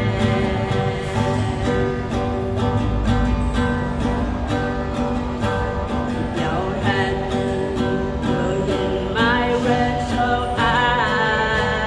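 A song sung softly over strummed acoustic guitar accompaniment.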